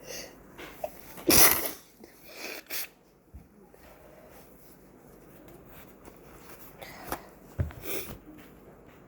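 A person sneezing: one loud sneeze about a second and a half in, then shorter, quieter bursts soon after it and again near the end.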